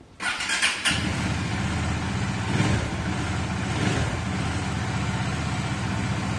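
Triumph Tiger motorcycle's three-cylinder engine cranked briefly on the starter, catching within about a second, then idling steadily. It is a cold start after the bike has stood unused for about 2 weeks to 20 days, left idling to warm up.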